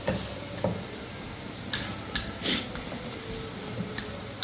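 Paratha frying in oil on a griddle: a steady sizzle, with a few light clicks of a utensil against the pan.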